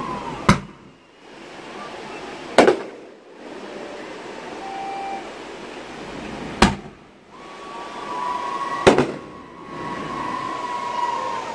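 Aerial fireworks going off: four sharp bangs two to four seconds apart, with a long steady whistle through the last few seconds.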